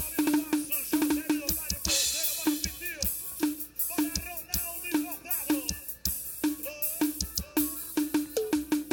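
Drum kit playing a steady groove, with a tuned drum hit about twice a second and cymbals on top, over accompanying music with a melody line.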